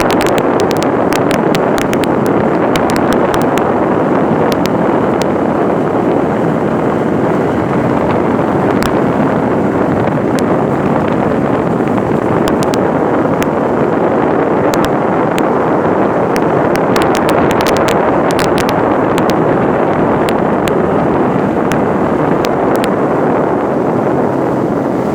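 13-foot fishing boat under way: a steady rush of motor and water, with wind buffeting the microphone. Many sharp clicks and slaps come through, thickest in the first few seconds and again a little past the middle.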